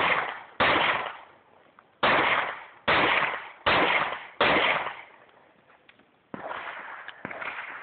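Pistol fired six times in an uneven string: two quick shots, a pause, then four more about three-quarters of a second apart, each a sharp crack with a short echoing tail. Two fainter bangs follow near the end.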